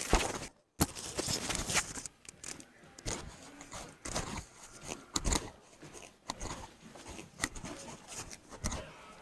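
Irregular rustling, clicks and knocks from a handheld recording device being handled and carried, with a brief dropout just under a second in.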